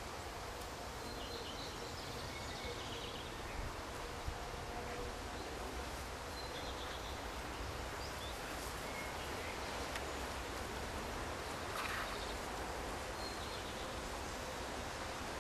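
Steady outdoor background hiss with a few faint, short bird chirps now and then.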